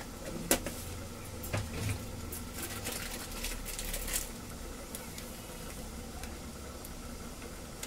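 A few light clicks and taps of kitchen utensils and containers being handled, over a steady low hum.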